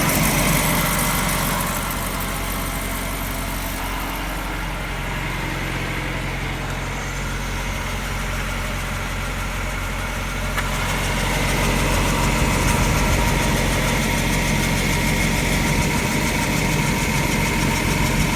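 Car running with its wheel turning, a steady mechanical drone under test for suspected hub-bearing noise; it eases off about two seconds in and builds again about ten and a half seconds in.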